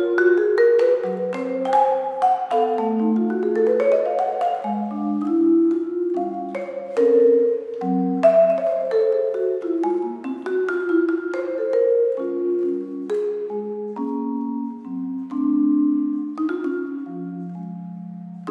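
Solo vibraphone played with four yarn mallets in a slow jazz ballad, its chords and melody notes ringing on and overlapping. About four seconds in there is a quick rising run, and near the end a low chord is left to fade.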